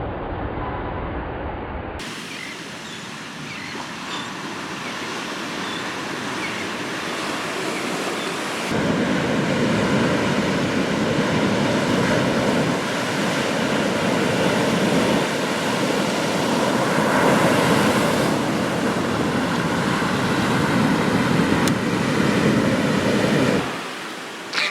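Ocean surf and wind rushing as a steady noise, with the wind buffeting the microphone. It shifts abruptly about two seconds in and gets louder about nine seconds in.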